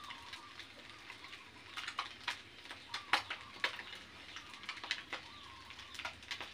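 Birds chirping in short, scattered calls, with a thin wavering call held underneath at times, over a faint steady background hiss.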